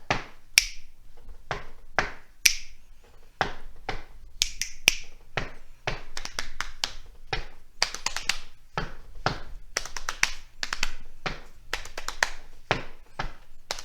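Body percussion played as a rhythm: hand claps, finger snaps, foot stomps and pats on the body and legs, several strikes a second in an uneven groove.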